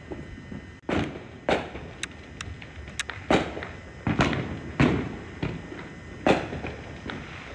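Fireworks going off at a distance: about ten sharp bangs at irregular spacing, each trailing off in a short echo, over a low steady rumble.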